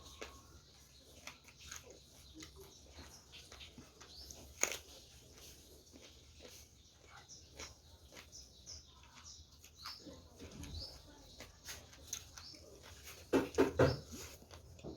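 Eating sounds from a mukbang: chewing and small clicks of food and utensils, with small birds chirping in the background. Near the end a quick run of three or four loud animal calls, likely a dog barking, stands out as the loudest thing.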